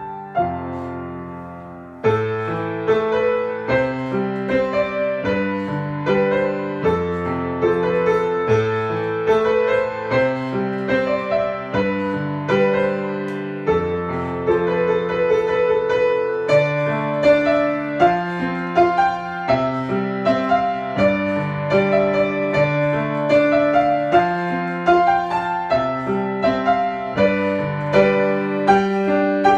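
Piano music: a continuous run of notes over lower held chords, coming in louder about two seconds in.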